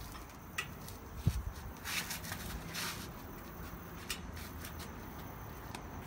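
Hand tools (a socket and wrench bar) being handled at a truck's bare wheel hub: a few scattered clicks and a sharper metallic knock about a second in, with two short hissing scrapes around two and three seconds.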